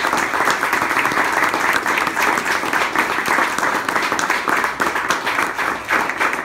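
A small roomful of people applauding, a steady, dense clapping.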